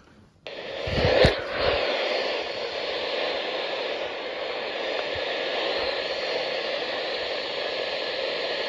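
Radio static: a steady hiss from a receiver with no signal, starting with a sharp click a little over a second in.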